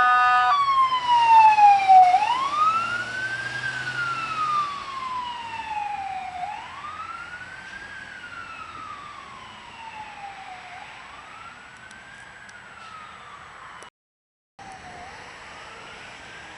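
Fire engine siren wailing, each sweep rising quickly and falling slowly, about every four seconds, growing fainter as the truck drives away. It opens with the end of a steady multi-note horn tone that cuts off about half a second in, and the sound drops out for about half a second near the end.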